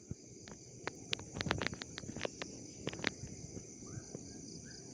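Steady high-pitched chorus of night insects such as crickets, with irregular sharp clicks and crackles scattered over it, most of them in the first three seconds. A few faint short chirps come near the end.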